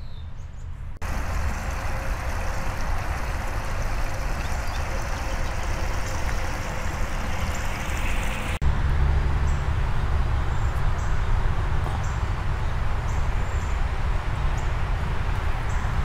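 Steady rushing of a small stream of water spilling over stones, with a low rumble of wind on the microphone. Near the middle the sound cuts to a louder low rumble with faint, short, high chirps.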